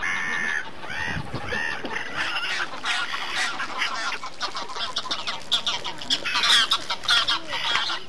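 Waterfowl calling at close range: several birds giving short pitched calls, a few longer ones in the first two seconds, then a quicker overlapping run that is loudest about six and a half seconds in.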